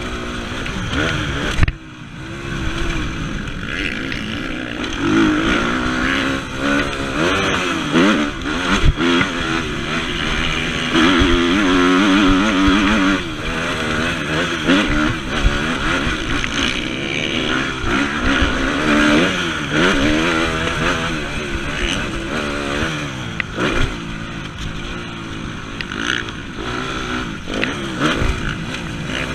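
Motocross bike engine heard close up from on the bike, revving up and down continuously as it is ridden hard over the track, its pitch rising and falling with throttle and gear changes. The throttle is closed briefly about two seconds in.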